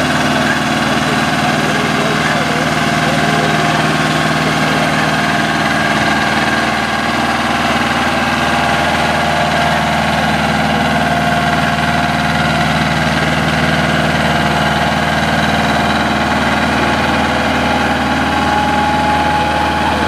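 Air-cooled Deutz diesel tractor engine running steadily under load as the tractor drags a weight-transfer sled, with an even, unchanging note.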